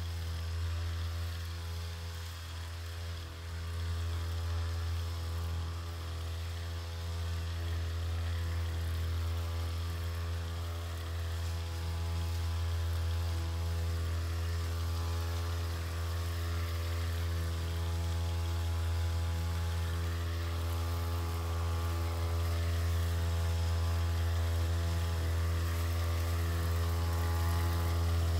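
Small engine of a motorized backpack sprayer running at a steady speed while spraying, gradually getting louder as it comes closer.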